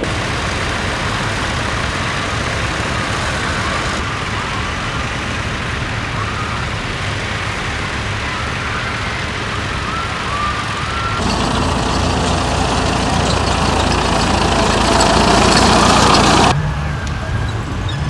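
Red farm tractor's diesel engine running steadily under load as it pulls a plough through stubble. The sound changes abruptly a few times, and near the end it drops to a quieter background.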